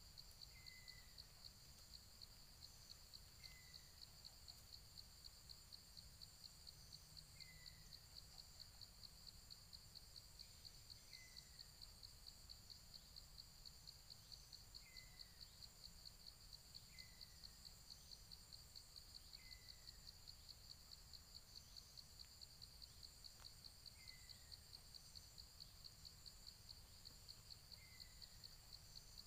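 Faint insect trill, a steady rapid high pulsing, with a small bird's short high falling call every few seconds.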